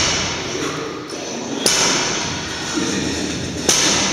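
Loaded barbell with bumper plates knocking on the floor twice, about two seconds apart, during touch-and-go power snatches: each knock is short and sharp, over a steady hiss.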